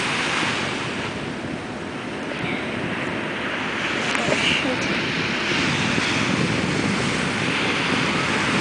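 Small surf breaking and washing up a sand beach: a steady rush of waves that grows slowly louder toward the end.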